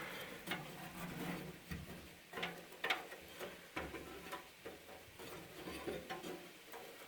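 Scattered light clicks and small knocks of hands working twine through the twine tensioner of a McCormick B46 small square baler.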